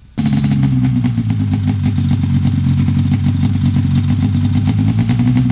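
Redline prototype snowmobile engine running steadily at a nearly constant pitch, close and loud. It cuts in abruptly just after the start.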